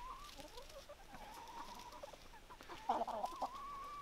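A flock of chickens clucking softly, with faint drawn-out calls.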